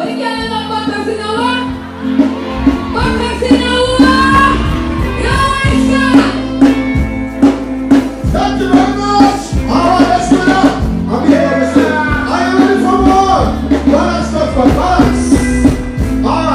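A woman singing live into a microphone over a backing track with a steady bass line and drum beat, played loud through a stage PA.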